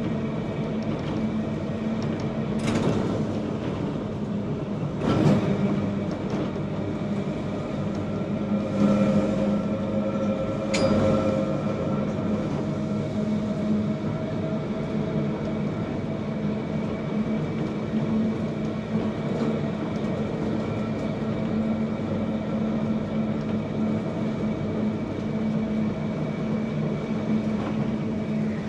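Manx Electric Railway electric tramcar running, heard from inside its wooden front cab: a steady hum from the traction motors and wheels on the rails. A few sharp knocks from the wheels over rail joints come in the first dozen seconds.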